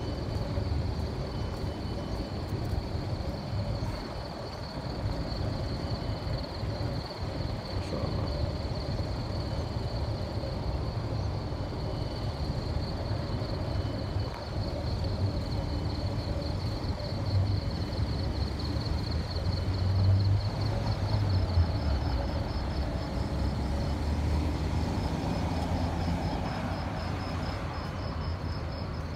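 Street ambience: a steady high-pitched insect trill, like crickets, that breaks into a pulsing chirp near the end, over a low rumble of traffic.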